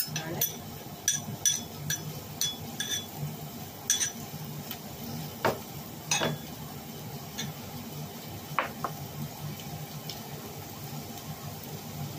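A metal spoon clinking against a saucepan and a small bowl as chopped garlic is tipped in and the chicken is stirred: a quick run of sharp clinks in the first three seconds, then single clinks every second or two.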